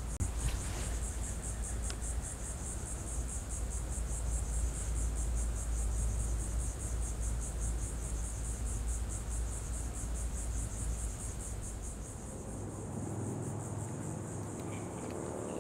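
Insects chirping: a steady, high-pitched trill pulsing evenly several times a second. Under it is a low rumble that eases off about twelve seconds in.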